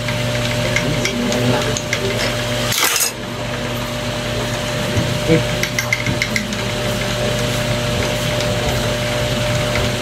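Small metal snap-fastener parts clicking and fabric rustling as they are handled by hand, over a steady background hum. There is one short, loud rustle about three seconds in.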